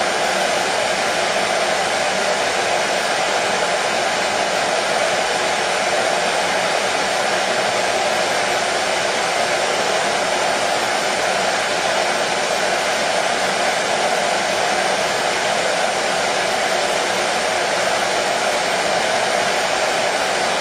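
Hair dryer blowing at a steady level, a constant whooshing rush of air with no change in speed.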